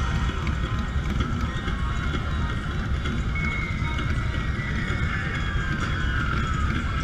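Motorcycle engines idling while stopped in traffic, a steady low rumble, with the rider's own cruiser close by.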